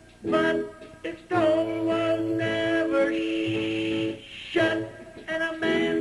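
Live singing with instrumental accompaniment: long held sung notes over sustained chords, with short breaks between phrases.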